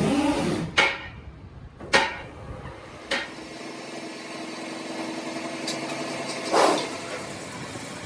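Hammer blows on metal, three sharp strikes a little over a second apart. After the strikes a machine hums steadily, with a short, louder noisy swell near the end.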